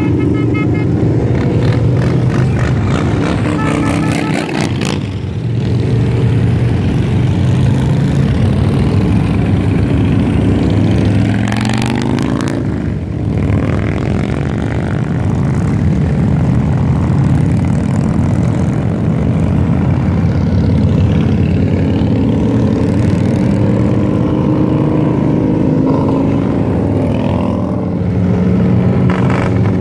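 A procession of touring motorcycles riding past one after another, their engines running in a steady loud mass. The engine notes rise and fall as individual bikes pass close.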